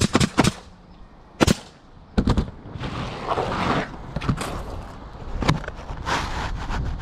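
Roofing nail gun firing nails through asphalt shingles: a series of sharp shots, several in quick succession, then more spaced out.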